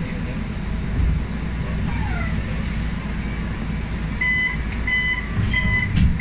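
Diesel engine of a MAN A95 city bus idling, heard from inside the cabin, with a short hiss about two seconds in. From about four seconds in, a warning beep sounds over and over, about one and a half beeps a second, typical of the bus's door-closing alarm.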